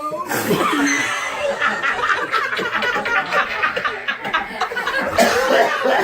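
A group of people laughing together, several voices overlapping, with some indistinct talk mixed in.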